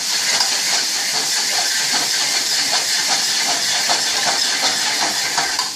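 Chopped onion, carrot and celery sizzling in a stainless steel pot as they are stirred: a steady loud hiss with small clicks and scrapes of the spoon against the pot.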